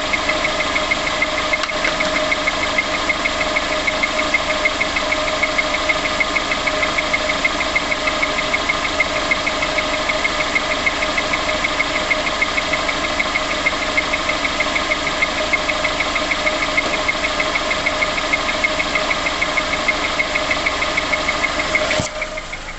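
Car engine running at idle with a fast, regular tapping, the start-up tapping noise. The sound drops suddenly near the end.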